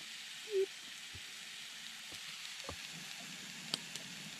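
Steak sizzling in a frying pan over campfire coals, a steady hiss of frying. A brief hum of a voice about half a second in, and a few light clicks, the sharpest near the end.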